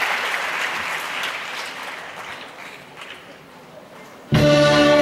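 Audience applause dying away over about three seconds. Then, near the end, a school string orchestra comes in suddenly with a loud held chord.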